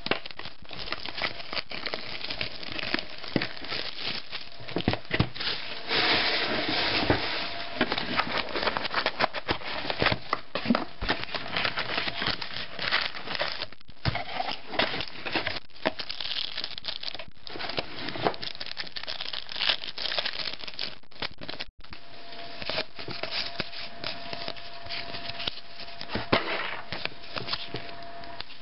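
Plastic wrap and foil trading-card packs crinkling and tearing as a sealed box of football cards is unwrapped and its packs handled and torn open, with busy rustling and small crackles throughout. The sound drops out for an instant about two-thirds of the way through.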